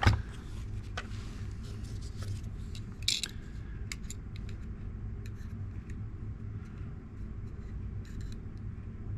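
Small clicks and a brief scrape of a folding knife being handled and its blade measured with calipers, over a steady low hum.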